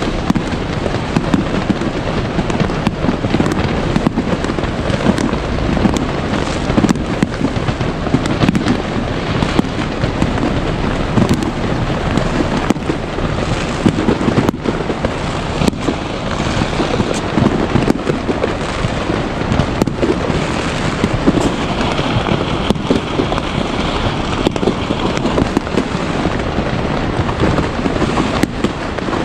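Fireworks going off in a dense, unbroken barrage: many sharp bangs and booms over a constant crackle, with a stretch of higher hissing crackle about three-quarters of the way through.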